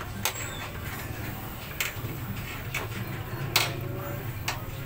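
Scattered sharp clicks and taps of an Epson L120 printer's plastic ink-tank unit and housing being handled with a small tool, the loudest about three and a half seconds in, over a steady low hum.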